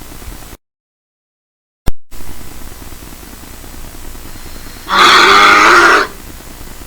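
A bear's loud roar lasting about a second, near the end, over a steady background hiss. Earlier, the sound drops out completely for over a second and comes back with a sharp click.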